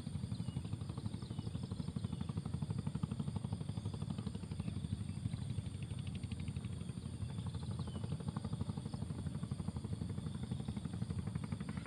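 A small engine running steadily, a low, fast, even chugging that stays the same throughout.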